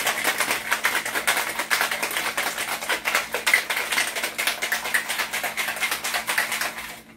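Ice cubes rattling fast inside a metal cocktail shaker as it is shaken to blend vodka, lime juice and ginger syrup. The rattle stops just before the end.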